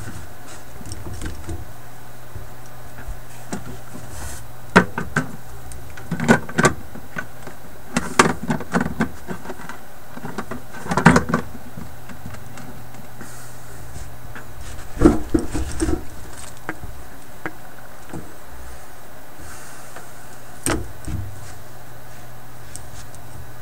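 Clicks, knocks and light rattles of a digital multimeter and its test leads being handled and set down on a workbench, coming in several short clusters. A steady low hum runs underneath.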